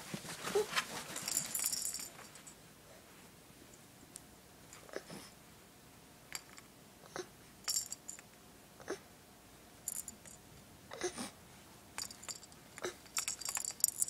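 Baby handling and mouthing a plastic rattle toy: a burst of jingling clicks about a second in, then scattered clicks and rattles, mixed with the baby's small breathy mouth sounds.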